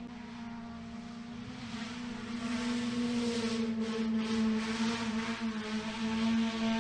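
Looping race-car engine sound effect: a steady engine drone holding one pitch, growing louder with more rushing noise from about two seconds in.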